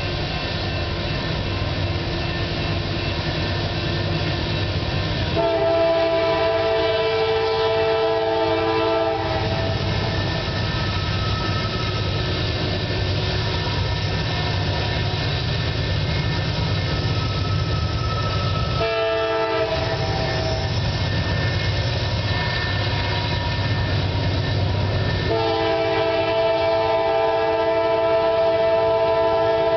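Diesel locomotive air horn sounding for a grade crossing: a long blast about five seconds in, a short one about nineteen seconds in, and another long one near the end. Under it runs the steady low drone of the CSX coal train's diesel-electric locomotives (GE AC4400CW, EMD SD70MAC, ex-SD45) working hard up a grade.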